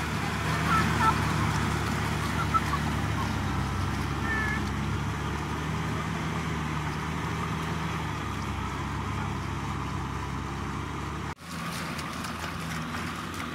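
Tractor engine running steadily as it pulls a rotary tiller through a flooded rice paddy, a constant low drone that drops out for an instant about eleven seconds in.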